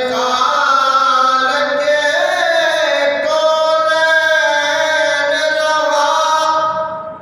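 A solo male voice chanting an Urdu manqabat, a devotional praise poem, into a microphone. It sings one long melodic phrase of held, gliding notes and fades out near the end.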